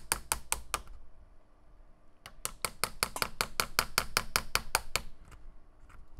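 Small chisel being tapped in quick, even strokes into a wooden revolver grip, paring out wood: sharp taps about seven a second. There is a pause of about a second, then a second run of taps that stops about a second before the end.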